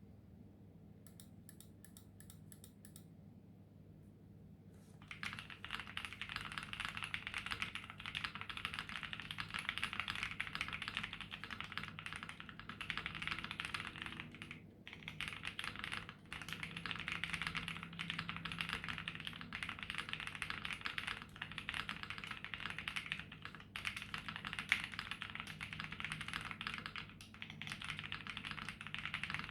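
Continuous fast typing on a Glacier 80 WKL custom mechanical keyboard with lubed Boba U4T tactile switches, GMK keycaps and PE foam inside, giving a deep, 'thocky', 'marble and creamy' key sound. The typing starts about five seconds in, after a few faint clicks.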